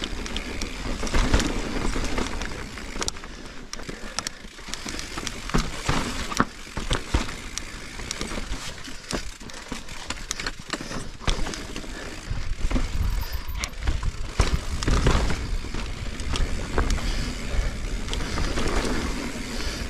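A 2021 Giant Reign Advanced Pro 29 full-suspension mountain bike riding down a rocky dirt trail: steady tyre noise over dirt and rock, with frequent rattles and knocks from the bike as it goes over bumps.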